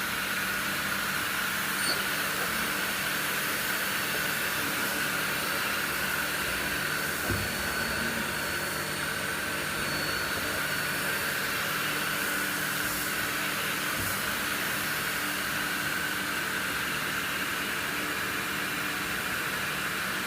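Mori Seiki NL2500 CNC lathe running with a steady mechanical hum and hiss while its spindle turns at 500 rpm, with a couple of faint clicks.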